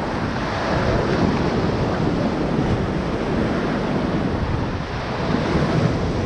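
Steady rush of whitewater from the Ocoee River around a raft, with some wind noise on the microphone.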